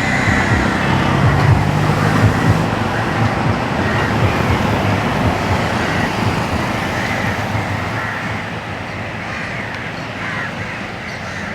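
Road traffic noise with a motor vehicle's engine hum, loudest in the first few seconds and then slowly fading.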